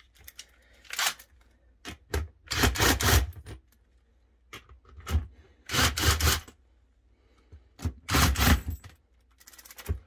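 Cordless impact driver run in about five short bursts, each up to about a second long, backing out the 7/16 bolts that hold down a sump pit lid.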